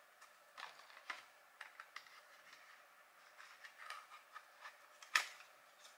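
Cardboard advent calendar box being handled and opened: faint scratching and small taps of card, with one sharp click about five seconds in.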